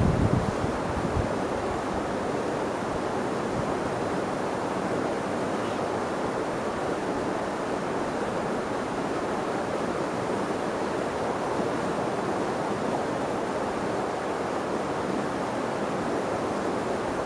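Steady, even rushing of wind on the microphone.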